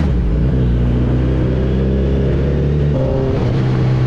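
Kawasaki Ninja 1000's inline-four engine with a full-system exhaust running at steady revs, its note shifting slightly about three seconds in.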